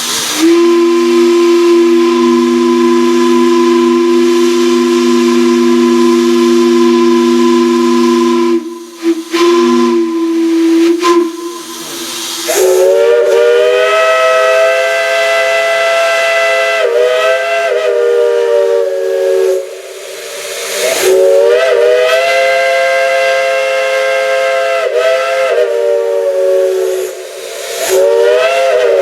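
Two steam chime whistles blown in turn. First a low whistle holds two steady notes for about twelve seconds. Then a higher multi-chime whistle sounds a chord in three long blasts, its pitch sagging and rising as the valve is worked.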